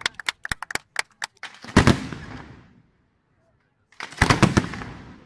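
Fireworks going off: a rapid string of sharp cracks, then two loud clusters of bangs and crackling about two and a half seconds apart, each dying away.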